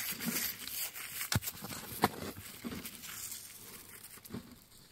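Gloved fingers scraping and raking through loose, gravelly dry soil, with a couple of sharper clicks a second or two in. The scratching dies down near the end.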